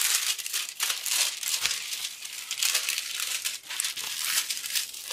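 Clear plastic protective film on a diamond painting canvas crinkling as hands lift and smooth it flat: a continuous run of quick crackles.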